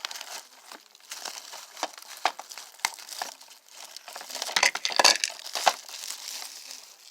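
Plastic wrapping being torn and crinkled off a DVD case: irregular crackling and rustling, loudest about four and a half to six seconds in.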